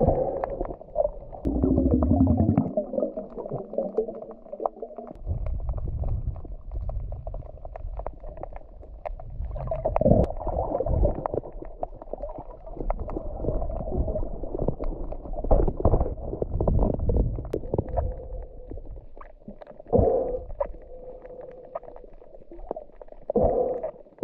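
Muffled underwater sound picked up by an action camera in its waterproof housing while swimming over a reef: low, uneven rumbling and sloshing of water against the housing, with a faint steady hum in the second half.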